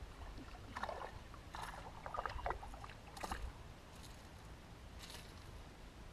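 A hooked perch splashing at the water's surface in short irregular bursts as it is reeled to the boat and lifted out, over a low steady rumble.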